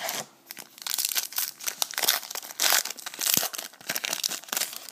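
Wrapper of a trading card pack crinkling and tearing as it is opened by hand, in a quick run of irregular crackles and rustles.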